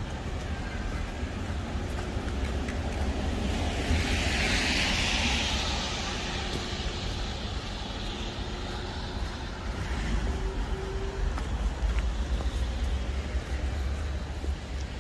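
City street ambience: a steady low rumble, with a vehicle passing that is loudest about four to six seconds in.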